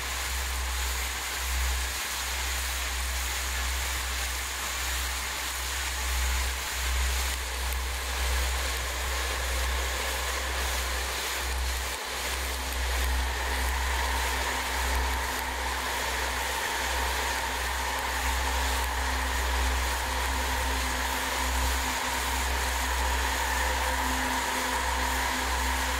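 Quadcopter's electric motors and propellers whirring steadily, heard through the onboard camera's microphone with heavy wind rumble. About halfway through, a steady motor whine comes through more clearly.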